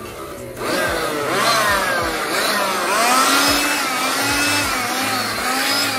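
Bosch Professional handheld electric blower surging up about half a second in and running hard, its motor whine rising and falling in pitch, blowing dust out of an opened ASIC miner.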